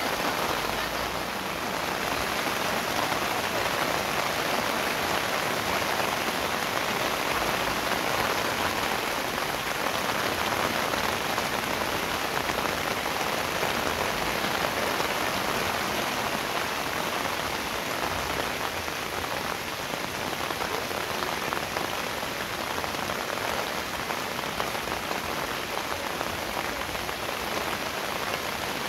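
Steady, fairly heavy rain falling on a taut waterproof 3x6 m flysheet tarp, the drops hitting the fabric with an even, unbroken rush.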